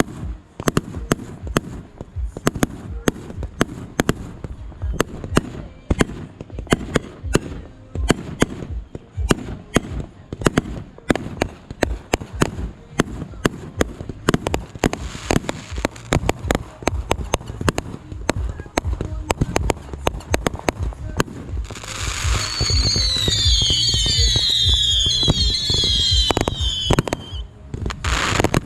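Consumer fireworks going off: a rapid, dense run of bangs and crackles, then about 22 seconds in a few seconds of whistling fireworks, several whistles falling in pitch over a steady hiss, followed by a few more bangs.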